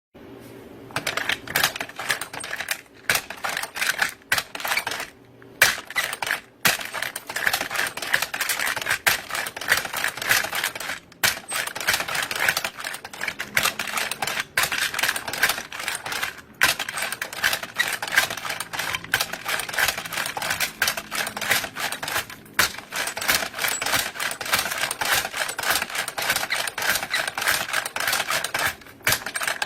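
Ammunition belt-loading machine clattering: a dense run of rapid metallic clicks and rattles as cartridges are fed into the links of a machine-gun belt, with a few brief pauses.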